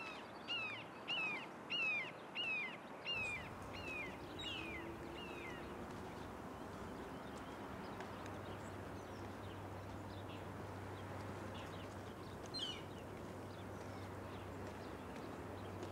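A bird gives a quick series of short, falling calls, about eight or nine of them over the first five or six seconds, over a steady outdoor hiss. A low hum comes in about halfway.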